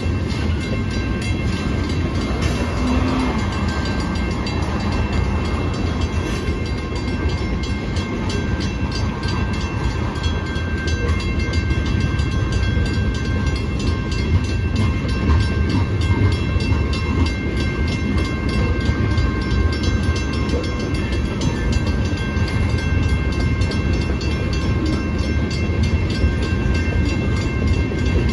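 Freight train of tank cars rolling steadily over a street grade crossing: a continuous low rumble with wheel clatter. Over it, a mechanical crossing bell rings as steady high tones.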